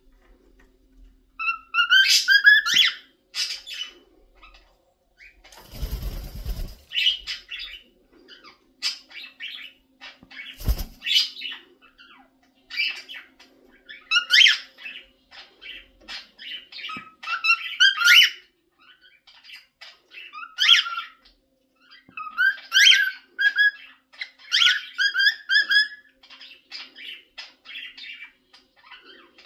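Cockatiel whistling and chirping in a long run of short, repeated phrases. A brief rustle about six seconds in and a thump near eleven seconds.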